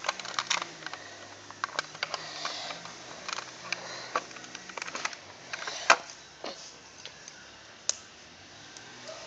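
Plastic Lego bricks clicking and rattling as they are handled and fitted back together: a string of irregular sharp clicks, with one louder knock about six seconds in.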